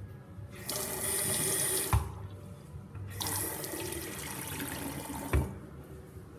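Two-handle bathroom sink faucet turned on and off twice: water running into the basin for about a second and a half, then for about two seconds. Each run ends with a short thump as the water shuts off.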